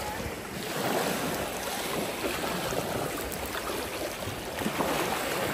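Black Sea waves washing onto the beach, the surf swelling about a second in and again near the end, with wind on the microphone.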